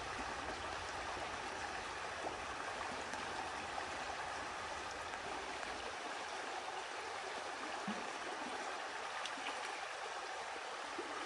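Mountain river water flowing, a steady even rushing.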